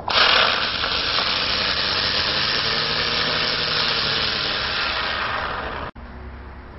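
A lit firework hissing steadily. It starts suddenly and cuts off abruptly about six seconds in.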